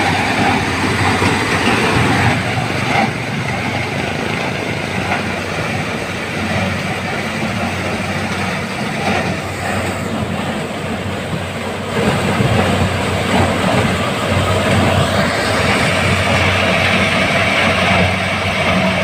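Kubota combine harvester running while harvesting corn: a loud, steady mix of engine and threshing machinery noise, louder from about twelve seconds in.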